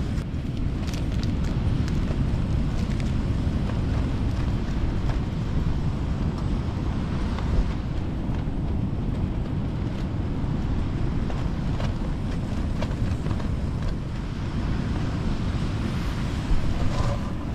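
Steady low rumble of wind buffeting the microphone, mixed with surf breaking, with a few faint clicks of handling.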